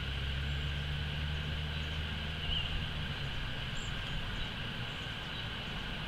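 Outdoor ambience: a distant engine hums low and steady, then fades out about halfway through, over a steady high-pitched hiss of insects. There is a faint single chirp near the middle.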